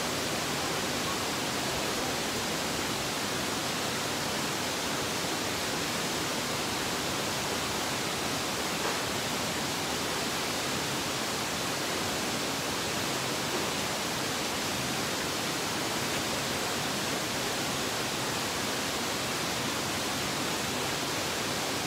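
Steady, even rushing noise with no change in level, with two faint soft bumps in the middle.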